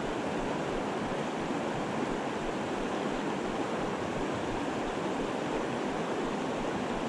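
River water rushing steadily over rocks and shallow riffles.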